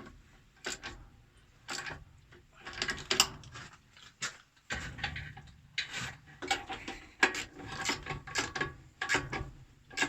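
Wrench tightening the bolts on a pump's plastic flange, an irregular run of ratcheting clicks and metal scrapes about one to two a second. The bolts are snugged only lightly so as not to crack the plastic flange.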